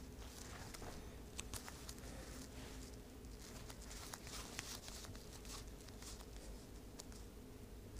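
Faint, irregular soft ticks and taps of playing cards being handled and set down on a tabletop, over a low room hum.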